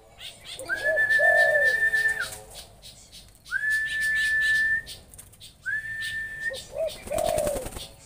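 A high whistled note sounds three times, each held steady for about a second, while a dove coos twice beneath it. There is a short splashing flurry near the end as a stilt bathes in the pool.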